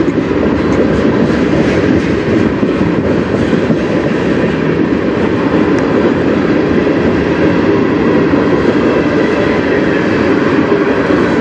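Freight train tank cars rolling past close by: a loud, steady rumble of steel wheels on rail.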